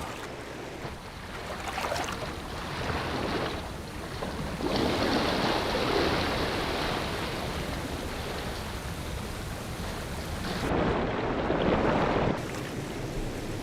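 Rushing water of a river pouring over a low waterfall, a steady roar that swells louder a few times.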